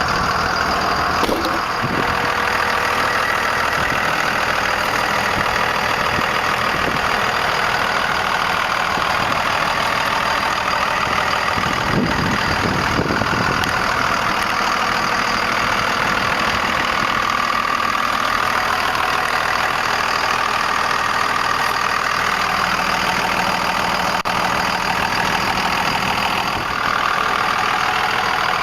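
A 1998 Dodge Ram 2500's 5.9-litre Cummins inline-six turbo diesel idling steadily, with the turbocharger's whine over the engine.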